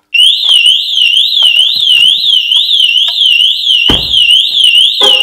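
Aftermarket car alarm siren going off at full alarm: a loud warbling tone sweeping up and down about three times a second, starting abruptly. It was triggered because the car was opened with its own key without the alarm's driver ID cards present. A car door thumps shut nearly four seconds in.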